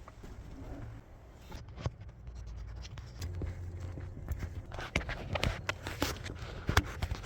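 Irregular clicks, taps and scrapes of hand tools and metal and plastic parts being worked around an engine's fuel rail, with one sharp click near the end.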